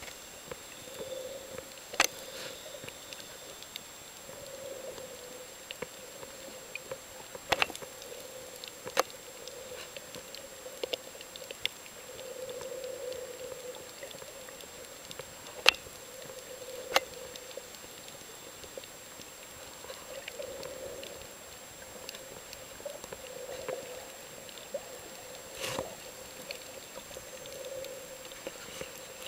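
Underwater sound picked up by a submerged camera: a muffled, wavering wash that swells and fades every few seconds, under a faint steady high whine, with a few sharp clicks scattered through, the loudest about halfway.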